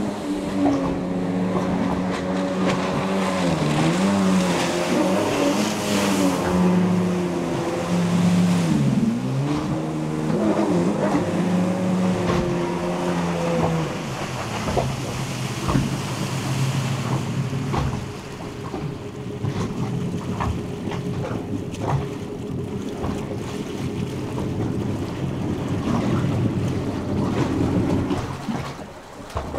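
1994 Yamaha WaveRaider jet ski's two-stroke engine running on the water, its pitch dipping and climbing back with the throttle a couple of times in the first half. About halfway through it settles into a steadier, fainter drone as the craft runs farther off, then fades near the end, with water noise under it.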